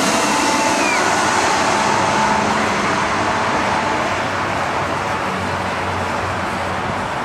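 Twin-engine jet airliner on final approach with its gear down, its engines making a steady rushing noise with a faint falling whine near the start. The noise eases slowly as it moves away.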